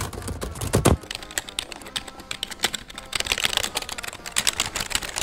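Fast typing on a laptop keyboard: a rapid, uneven run of key clicks, with a louder knock just before the one-second mark.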